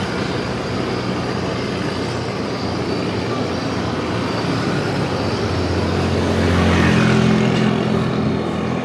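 Steady road and wind noise while riding in traffic, with a motor vehicle's engine hum swelling and passing near the end.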